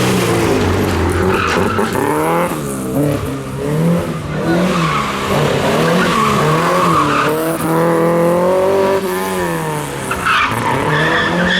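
Classic rally car engine working hard on a stage, its revs rising and dropping again and again as it accelerates, shifts gear and brakes for corners.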